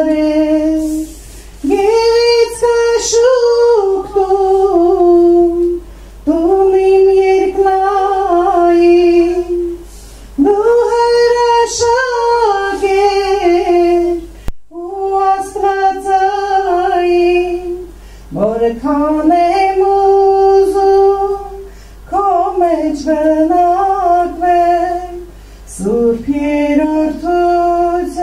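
A woman singing a religious song unaccompanied into a hand microphone, in phrases of a few seconds with held notes and short breaks between them.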